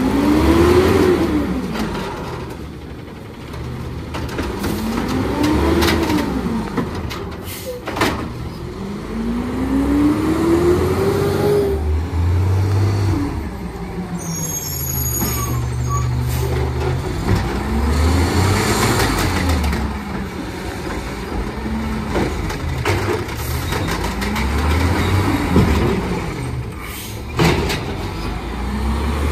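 CNG engine of a 2011 Peterbilt 320 garbage truck with an Amrep automated side loader revving hard, rising and falling again and again, about six times. A few sharp hisses of the air brakes come in between.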